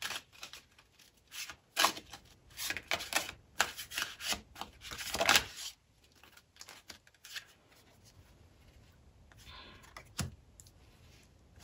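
Tarot cards being shuffled and handled: quick runs of papery riffling and flicking strokes for about the first half, then sparser light taps, with one sharp click near the end.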